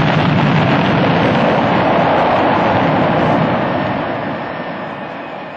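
Space Shuttle lifting off: the roar of its solid rocket boosters and main engines, a loud steady rumble that starts to fade about three and a half seconds in.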